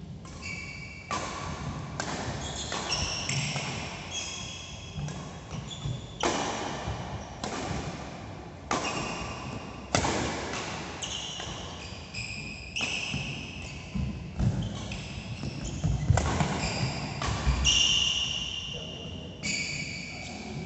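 Doubles badminton rally: sharp racket strikes on the shuttlecock about once a second, with shoes squeaking on the court mat between shots. Each hit echoes briefly in the hall.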